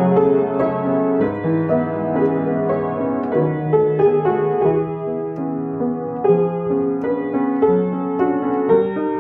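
Yamaha upright piano being played: a slow, lyrical melody over sustained chords.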